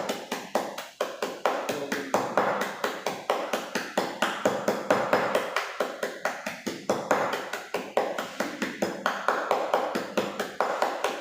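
Kitchen knife chopping rapidly on a cutting board, about six even strikes a second, with brief pauses.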